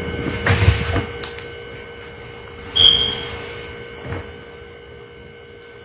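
Steady low electrical hum with one short, high-pitched beep about three seconds in. There are a couple of faint knocks in the first second or so.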